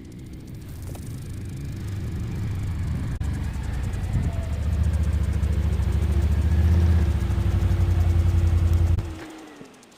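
An engine running, growing louder over the first few seconds and holding steady, then cutting off about nine seconds in as its pitch falls away.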